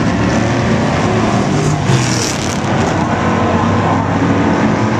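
A pack of factory stock race cars running at speed, many engines together in a steady, loud drone.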